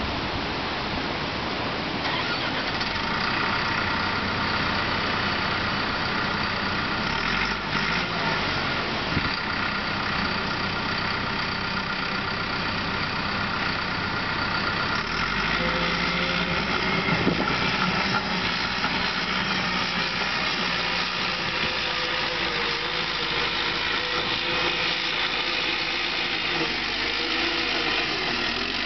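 CAT D5 crawler dozer's diesel engine running steadily under load as the machine pushes dirt up a mound and climbs onto its top. The engine note changes about halfway through.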